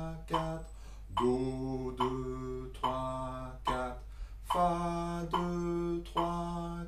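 A man's low voice singing the note names of a trombone part in time, in held syllables of about a beat each, moving between a few neighbouring low pitches.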